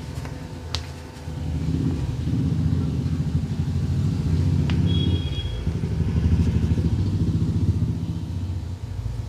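A motor vehicle engine running close by, swelling in level about a second in and easing off near the end. A sharp click comes just under a second in, and a brief high beep comes around halfway.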